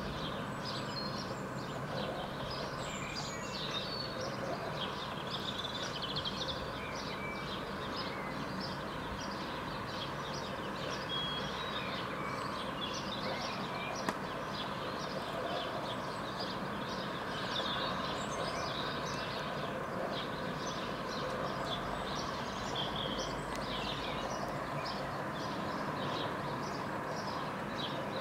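Small songbirds chirping and singing in quick, scattered notes over a steady background hum of traffic, with one sharp click about halfway through.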